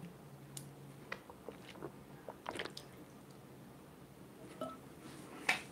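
Quiet room tone with a few faint, scattered clicks, the sharpest near the end.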